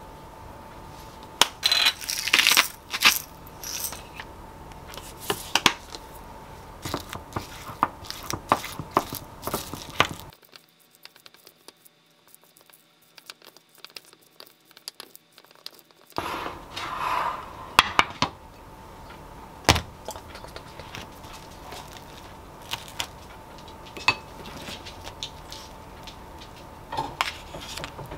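A wooden spoon clinks and scrapes against a ceramic bowl as thick Greek yogurt with bacon bits and chopped green onion is stirred, with quick rattling shakes from a salt-and-pepper shaker near the start. There are about six seconds of near silence in the middle, and a faint steady hum sits under the rest.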